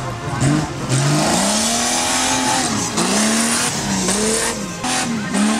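Off-road racing vehicle's engine revving up and down over and over, its pitch climbing and dropping about once a second.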